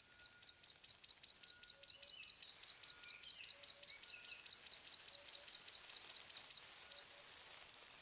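Faint outdoor nature ambience: an animal gives a rapid, even series of high chirps, about five a second, that stops near the end, over a steady hiss, a few lower bird-like calls and short faint repeating notes.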